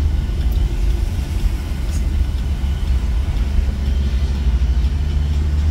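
Steady low rumble of a car driving along, heard from inside the cabin: engine and tyre noise.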